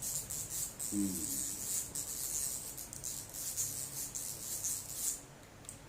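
Paper or plastic packaging rustling and crinkling as it is handled, stopping about five seconds in; a brief low murmur about a second in and a small click near the end.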